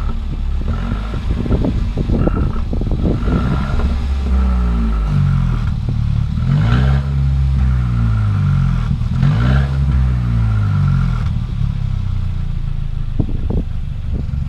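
Mercedes CLA engine heard at its exhaust tip, running while parked and revved several times, the pitch climbing and falling back with each blip.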